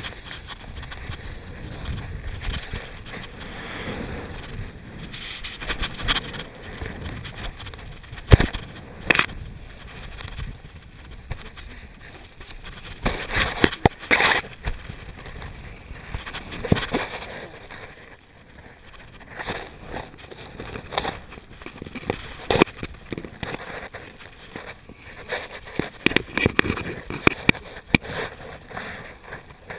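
Wind rushing over a body-mounted action camera's microphone on a paraglider pilot in a fast, twisted descent. Irregular sharp knocks, scrapes and rustles of harness, lines and canopy fabric break through the wind, with a cluster about halfway through.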